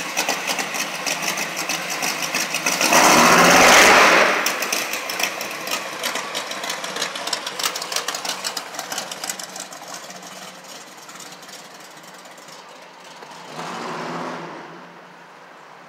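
Chevrolet C10 pickup engine running with a fast, even exhaust pulse, surging loudly about three seconds in as the truck pulls away, then fading into the distance with a smaller swell near the end.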